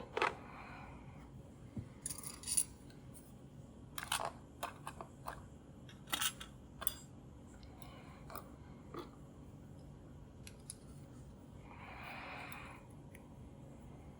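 Small metal clicks and taps as lock pins and picking tools are handled while the padlock's core is taken apart, several in quick clusters in the first half, with a soft rubbing sound about twelve seconds in.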